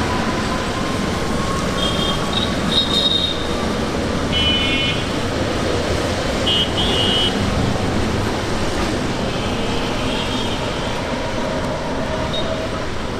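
Steady vehicle rumble with several brief high-pitched toots, about two, four and a half and seven seconds in.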